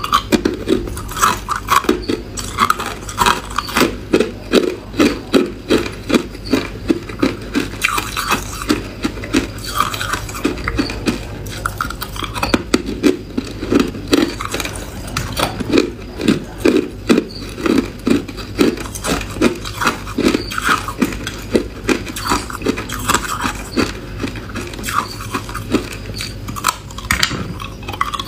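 A person chewing hard ice close to the microphone: a quick, steady run of crunches, about two to three a second.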